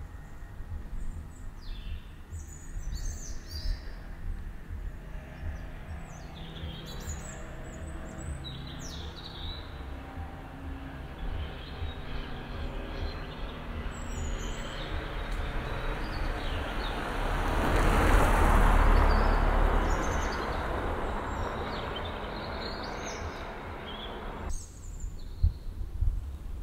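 Street ambience: birds chirping in short, scattered calls over a steady low traffic rumble. A vehicle passes, loudest about two-thirds of the way through.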